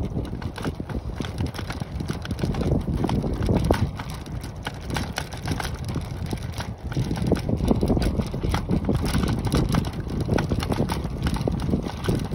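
Wind buffeting a phone microphone: a loud, uneven low rumble with gusty bumps throughout.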